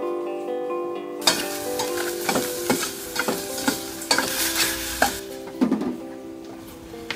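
Chopped onion sizzling as it fries in a steel pot, stirred with a metal spoon that scrapes and clinks against the pot. Acoustic guitar music plays underneath. The sizzling and clinking start about a second in and die down after about five seconds.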